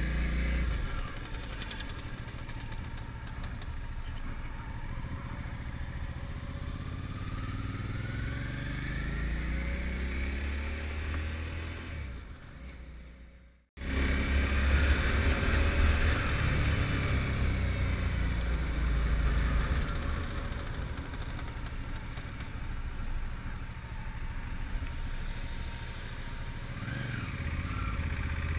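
Motorcycle engine running while ridden, its pitch rising and falling. The sound fades and breaks off about halfway, then comes back louder. The bike has a gearbox that is hard to shift and makes a worrying noise, which the owner puts down to the gear-change return spring.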